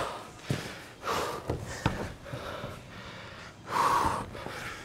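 A tired climber breathing hard in a few heavy breaths and gasps, with the strongest breath just before the end.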